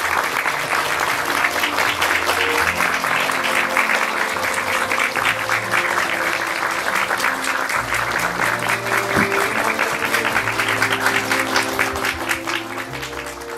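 Audience applauding over instrumental background music with sustained notes. Both fade out near the end.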